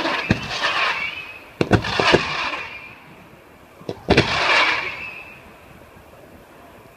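Fireworks display going off: sharp bangs about a third of a second, a second and a half, and four seconds in. Each bang is followed by about a second of hissing, crackling burst, and then it dies down.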